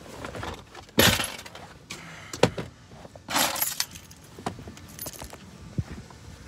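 Handling noises of someone moving about in a car and stepping out: knocks, clicks and rustling, with a loud thump about a second in and a short rustling burst a little past the middle.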